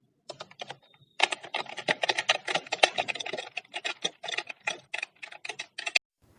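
Key strokes on a Redgear Blaze 3 membrane gaming keyboard: a few separate key presses, then about five seconds of rapid typing that stops suddenly just before the end.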